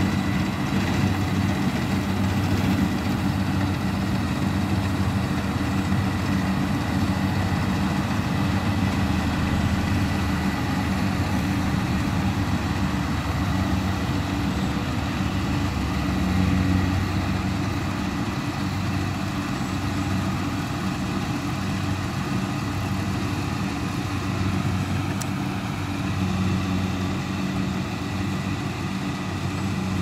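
Diesel engine of a tracked rice combine harvester running steadily as it cuts and threshes, a continuous low hum that swells briefly about halfway through and then eases a little.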